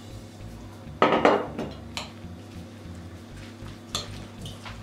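Metal spoon clinking and scraping against a glass mixing bowl as a thick egg-and-cheese mixture is stirred, with one loud clatter about a second in and smaller clicks near the end.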